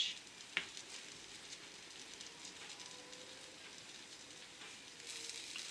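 Sandwich frying in oil in a nonstick pan: a faint, steady sizzle, with a single click about half a second in.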